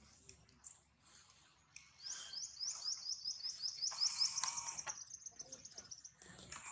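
A bird calling: a run of quick, high, sweeping chirps starting about two seconds in, speeding up and fading near the end, followed by a sharp click at the very end.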